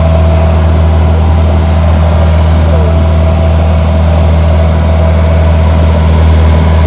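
A large engine running steadily: an even low drone with a few constant humming tones above it.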